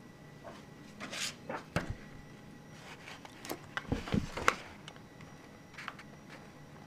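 Handling noises: scattered rustles and clicks, with a cluster of clicks and low bumps about four seconds in, from hands moving a die-cast toy car and a sheet of green card close to the camera.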